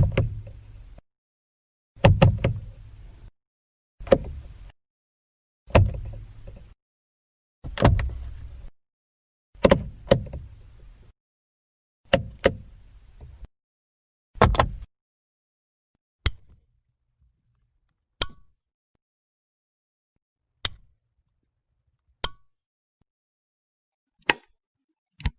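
Light switches being flipped, one short recording after another. The first several are duller clicks with a low thud, often two in quick succession as the switch goes on and off; from about two thirds of the way through they give way to single sharp, thin clicks about every two seconds.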